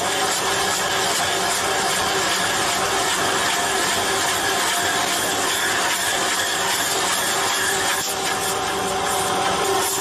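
A hydraulic stump grinder head spinning into a tree stump and shredding it into wood chips. It makes a steady grinding noise over the hum of the engine and hydraulics driving it, with a brief dip about eight seconds in.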